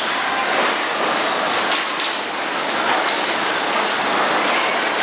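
Electric bumper cars running across a rink floor, a steady noisy hiss and rattle.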